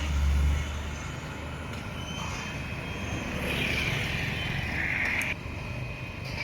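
Heavy construction vehicle engine running. A strong low rumble eases off about half a second in, and a harsh rasping noise rises over it for about two seconds in the middle, then cuts off suddenly.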